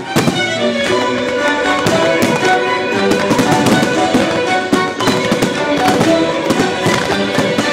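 Fireworks going off in many quick bangs over music that plays throughout.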